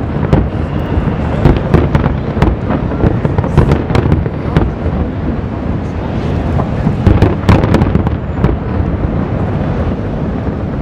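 Distant aerial firework shells bursting in rapid succession: a continuous rumble of booms with many sharp reports overlapping.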